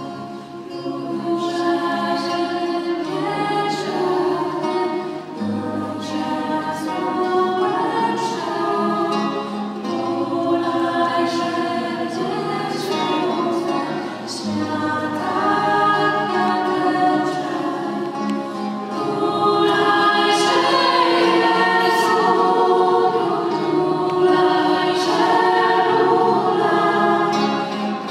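Choir singing a Polish Christmas carol (kolęda), with held low accompaniment notes beneath the voices; the singing grows louder about two-thirds of the way through.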